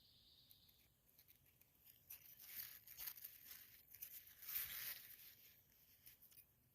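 Mostly near silence, with faint rustling and scraping noise for about three seconds in the middle.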